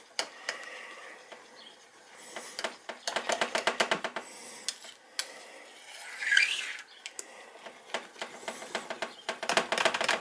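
A spoon stirring thick split pea soup in a slow cooker's crock, knocking and scraping against the pot's sides in quick runs of small clicks, about two seconds in and again near the end, with a short scrape a little after six seconds.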